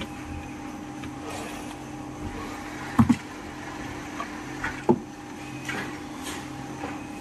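Hard plastic knocks as a steamer's plastic housing and circuit board are handled: a sharp double knock about three seconds in and another near five seconds, with a few light clicks. A steady low hum runs underneath.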